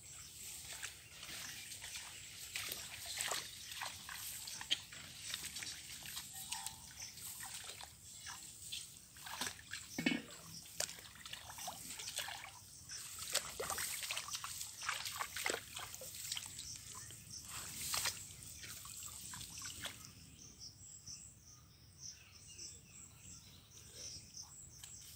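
Shallow muddy water splashing and trickling in a run of short splashes as hands and feet stir it while wading and groping for fish; it grows quieter near the end.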